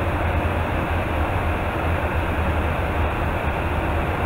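Steady roar of airflow and engines heard inside an aerial refuelling tanker's boom operator station in flight, with a constant low drone underneath.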